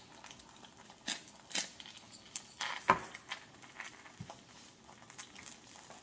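Egg frying in oil in a stainless steel camp frying pan, crackling and popping irregularly, with one sharp click about three seconds in.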